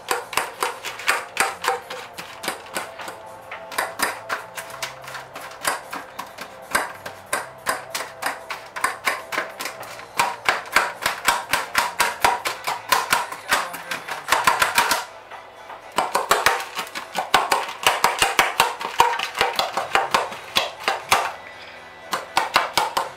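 A metal fork tapping and chopping through hardening butterscotch-coated popcorn on a metal baking tray, breaking the sticky clusters apart: rapid light clinks and scrapes, several a second, with a brief pause about fifteen seconds in.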